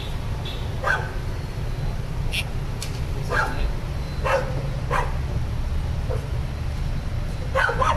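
A dog barking in short single barks, about five in all, over a steady low rumble.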